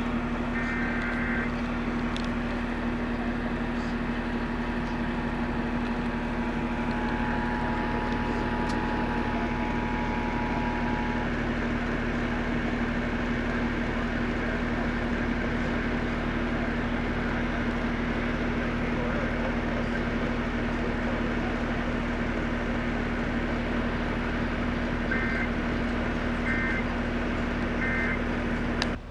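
Heavy AM radio static hiss with a steady hum beneath it. Faint Emergency Alert System tones come through the noise: digital header bursts at the start, the two-tone attention signal held for about seven seconds from around four seconds in, and three short end-of-message bursts near the end, part of a Required Monthly Test.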